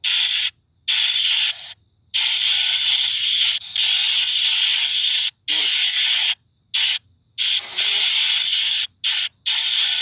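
Shadows Box spirit box app playing hissing white-noise static that cuts on and off abruptly, in chunks of half a second to two seconds separated by short silent gaps.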